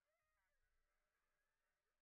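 Near silence, with faint whining from sled dogs in harness, rising and falling in pitch.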